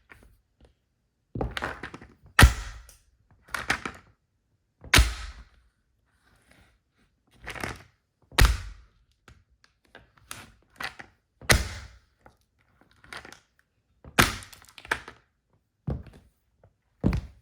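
Wedge-heeled shoes stamping down on a plastic toy car, crushing it: a string of separate, irregular heavy thuds with cracking, about a dozen blows with lighter knocks between them.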